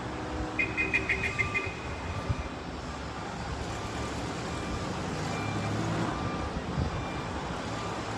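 Steady low rumble of distant road traffic, with a brief rapid run of high-pitched pips about a second in.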